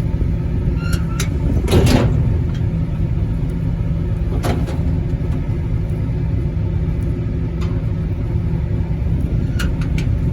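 Steady low rumble of a direct-fired outside-air heating unit running, with its burner output at 0%. A few short clicks and scrapes sound over it, about 2 s in, in the middle and near the end.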